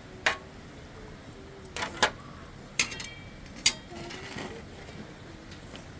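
A series of sharp clinks and knocks, about six, irregularly spaced; one, about three seconds in, rings briefly like struck metal or crockery.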